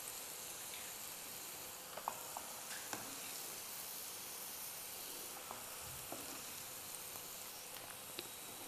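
Floured squid rings deep-frying in a pan of hot oil, a steady sizzle, with a few light clicks of metal tongs as the rings are lifted out.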